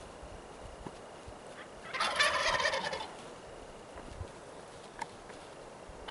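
A wild turkey tom gobbles once, about two seconds in, in a rapid rattling call that lasts about a second.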